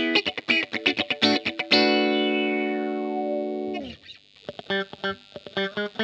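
Electric guitar (a Hahn 228) played through distortion and effects pedals: rapid picked notes, then a held chord ringing for about two seconds with a sweep falling through its tone. The chord is cut off suddenly, and short choppy notes follow.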